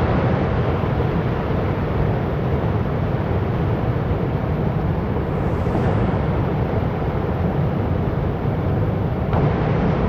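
Waterfall: a steady rush of falling water, heaviest in the low rumble.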